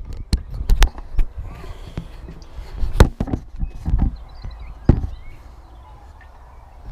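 A few sharp knocks and clunks of equipment being handled, the loudest about three seconds in and another near five seconds, over low handling noise.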